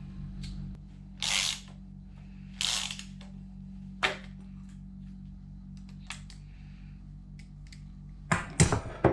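Hand tools at work taking a water pump off an engine block: two short scraping rasps, a sharp click and a few faint ticks, over a steady low hum. A brief vocal sound near the end.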